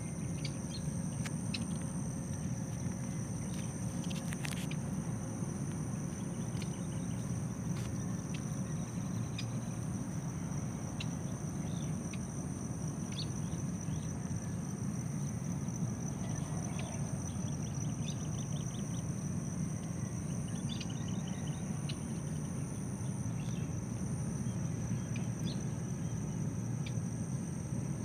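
Outdoor rice-field ambience: a steady high-pitched drone of insects, with short bird chirps scattered throughout, over a constant low rumble.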